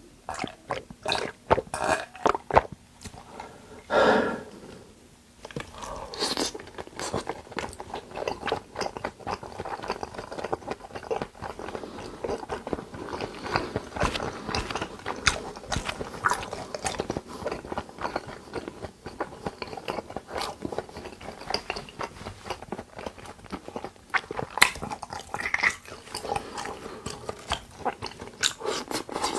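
Close-miked chewing of yukhoe, Korean raw beef, with continuous wet, clicking mouth sounds and bites. There is a louder burst about four seconds in.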